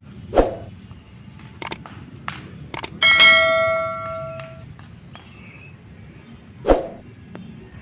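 A single metallic, bell-like ding about three seconds in, ringing out for about a second and a half. It sits over a steady low rumble, with a dull thump near the start and another near the end.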